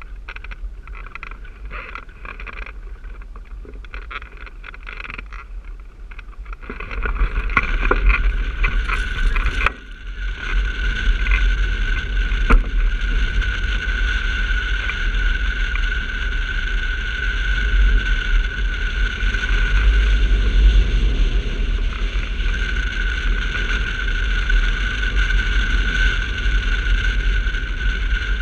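Footsteps on loose gravel during a hang glider's launch, then wind rushing over the glider and its wing-mounted camera in flight: a strong low rumble with a thin, steady whistle. The wind noise jumps up sharply about seven seconds in as the glider lifts off.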